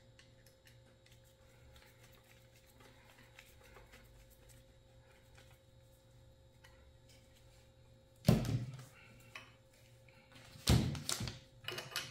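Faint ticks of a screwdriver turning the front action screw into a bolt-action rifle's stock, then loud knocks about eight and eleven seconds in as the rifle is handled and laid down on the table.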